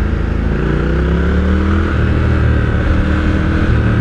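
Triumph Scrambler 1200 XC's 1200 cc parallel-twin engine running through an Arrow slip-on exhaust under way. Its pitch rises for about two seconds, then the note changes and holds steadier.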